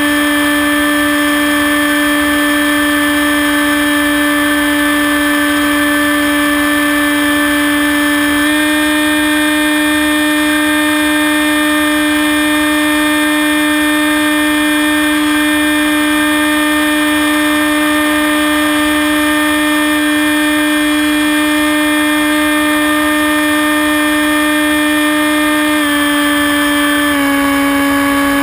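Electric motor and propeller of a Hawk Sky RC plane, picked up by its onboard camera, whining at a steady pitch. The pitch steps up slightly about eight seconds in and drops back in two small steps near the end as the throttle changes.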